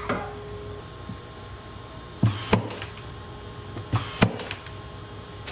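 RIDGID cordless brad nailer firing brad nails through solid oak trim into a plywood box: four sharp shots in two quick pairs, about a quarter second apart, over a steady low hum.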